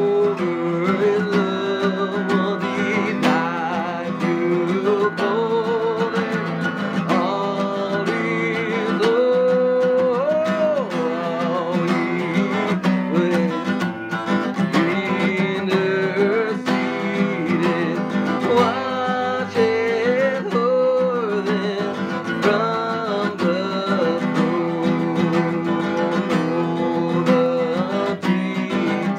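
A hymn sung with acoustic guitar accompaniment.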